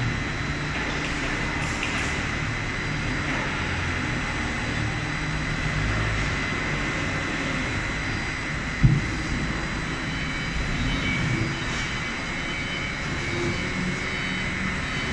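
Veneer clipper production-line machinery running steadily, with a steady high whine over a continuous machine rumble. One heavy thud about nine seconds in.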